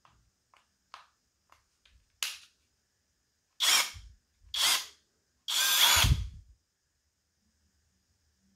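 Parkside PBSPA 12 A1 12 V cordless drill-driver run in short trigger bursts: four brief runs, the last and longest about a second, after a few light clicks of handling.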